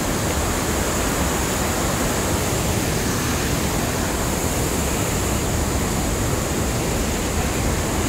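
Steady rushing of a large waterfall close by, its water cascading down rocky drops.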